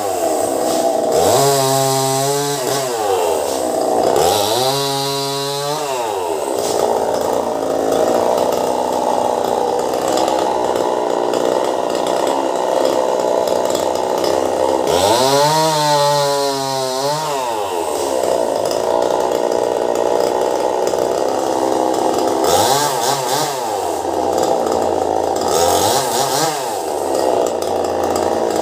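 Petrol chainsaw cutting tree limbs, running at high revs under load. The engine note drops toward idle and climbs back several times, about 2, 5, 16, 23 and 26 seconds in, between cuts.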